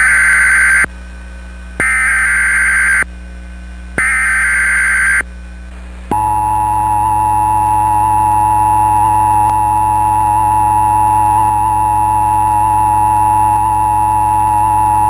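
Emergency Alert System SAME header: three one-second bursts of warbling digital data tones with short gaps between them. About six seconds in, the steady two-tone EAS attention signal starts and holds.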